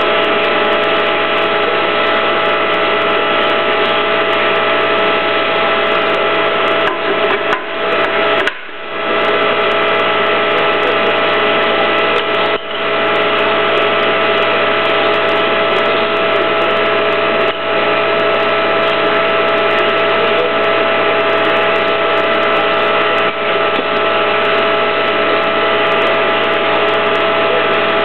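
Hydraulic power unit of a YJ2000 pipe and tube bender running steadily, a constant machine drone with a few brief dips in level.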